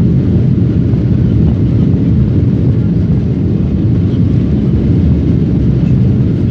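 Jet airliner's engines in reverse thrust during the landing rollout, heard from inside the cabin as a loud, steady, low roar mixed with runway rumble.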